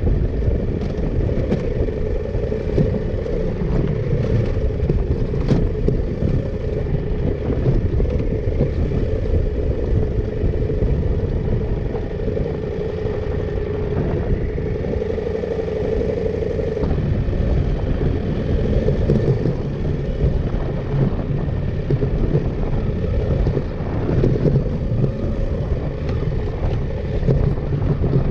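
KTM 890 Adventure R's parallel-twin engine running while the bike is ridden, with wind and road noise. The engine note holds steady, then shifts about 17 seconds in.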